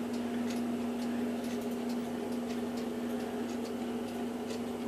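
A steady hum with faint, regular ticks about twice a second.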